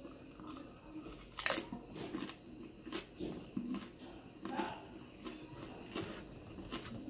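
A person biting into a corn taco with one loud crunch about a second and a half in, then chewing it with repeated smaller crunches.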